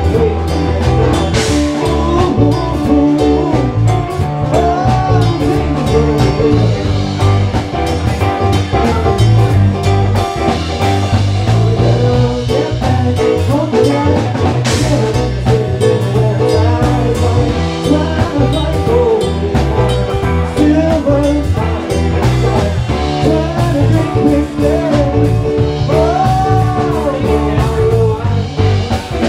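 A live band playing a funk-jazz jam: electric guitar over a drum kit and keyboard, with a heavy bass line, loud and continuous.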